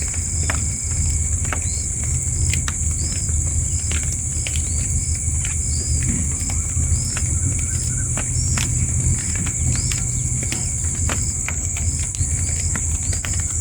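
Steady high-pitched insect drone, with a bird's short high chirps repeating about twice a second over a low rumble.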